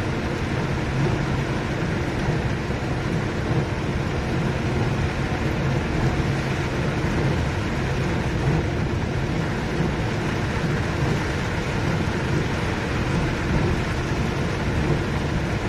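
Heavy rain pouring steadily, with a deep steady rumble beneath it.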